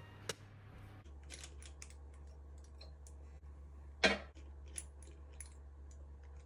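Faint clicks and taps of small glass dropper bottles being picked up and handled on a ceramic bathroom sink, with one louder, slightly longer handling sound about four seconds in.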